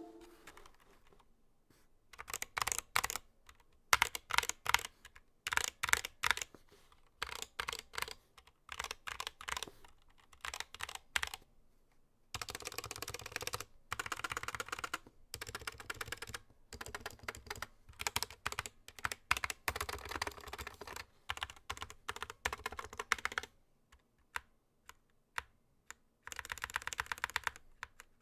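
Typing on a Skylong GK61 keyboard with stock Gateron Black optical linear switches and rubber keycaps: bursts of keystrokes that become one long, fast run in the middle, then a few lone clicks and a last fast burst near the end.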